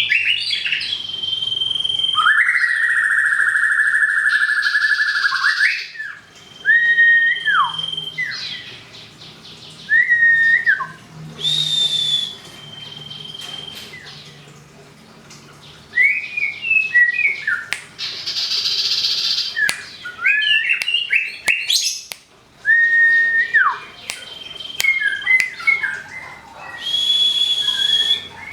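A white-rumped shama and a cipoh (common iora) singing back and forth: clear whistled notes, long held warbling tones and short sliding calls, broken by several harsh buzzy bursts.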